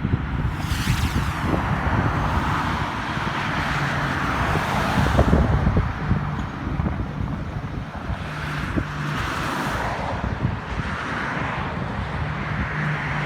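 Car on the road: steady tyre and wind noise over a low engine hum, with a vehicle swishing past about a second in and again near the end.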